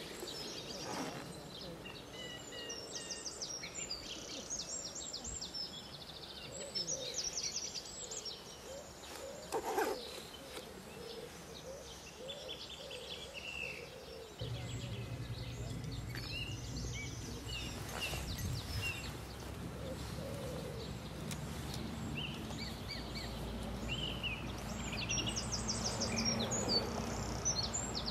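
Songbirds chirping and trilling in repeated short phrases, with a low steady hum that comes in about halfway through.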